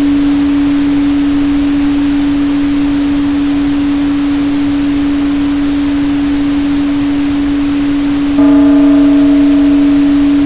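A steady pure 285 Hz sine tone held over a continuous pink-noise hiss. About eight seconds in, the tone swells suddenly louder and fainter higher ringing overtones come in and fade away.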